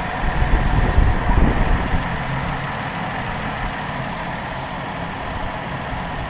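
Dodge Charger's 3.6-litre Pentastar V6 idling steadily, heard from over the open engine bay. Wind buffets the microphone with low rumbles in the first two seconds.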